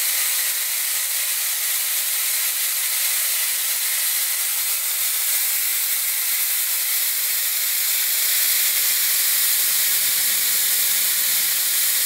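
Zuvi Halo hair dryer running steadily: an even, high airy hiss of blown air with a faint steady whine in it. A low rumble joins in about the last four seconds as the air stream turns toward the microphone.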